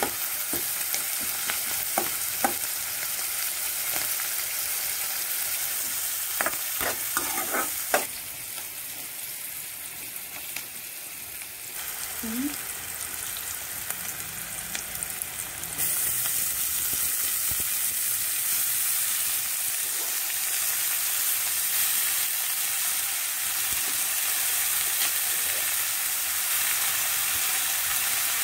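Chopped onions and green chillies frying in oil in a steel kadhai, with a metal spatula scraping and clinking against the pan during the first several seconds. From about halfway on there is a steady frying sizzle.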